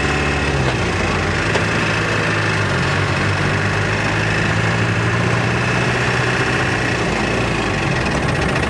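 Engine of a moving road vehicle, heard from inside it, running steadily with a low hum; its note drops a little about a second in.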